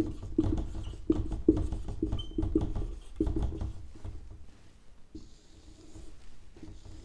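Dry-erase marker writing on a whiteboard: a quick run of short strokes and taps, about three a second, as letters are written. After about four seconds they turn sparser and fainter, ending in a longer, smoother stroke as the word is underlined.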